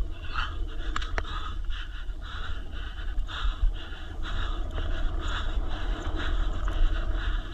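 Riding noise from an e-bike on an enduro trail: a steady low rumble of tyres and wind on the microphone, with the rider's hard breathing pulsing about twice a second and a couple of sharp rattling clicks about a second in.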